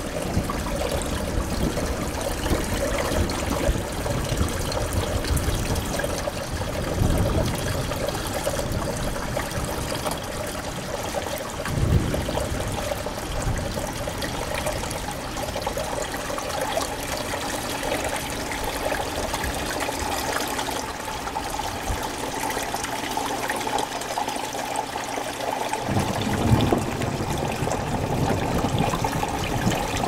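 Water trickling and splashing steadily from a pump-fed waterfall and shallow stream in a large indoor vivarium. The lower part of the sound changes abruptly twice, about twelve seconds in and near the end.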